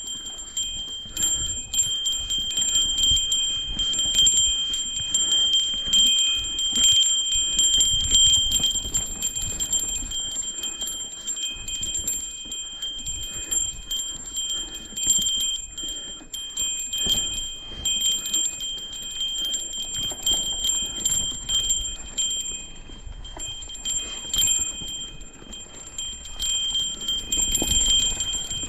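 A small bell jingling and ringing continuously, with irregular rattling clicks and a low rumble underneath.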